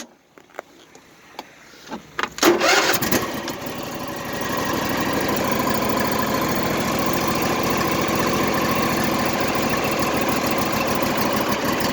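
Husqvarna engine being cold-started on a jump, on a weak battery. After a few clicks it catches about two and a half seconds in and settles into steady running.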